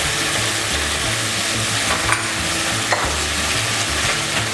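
Chicken drumsticks, onion, potatoes and carrots sizzling as they sauté in oil in a pot while being stirred, with two sharp clicks of the utensil against the pot about two and three seconds in.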